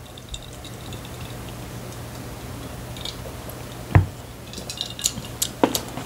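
A low steady hum, with a single dull thump about four seconds in, then a few light clicks and rustles.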